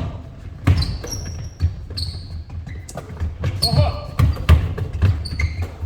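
Basketballs bouncing on a hardwood gym floor: irregular dribble thumps, several close together, with short high squeaks of shoes on the court mixed in.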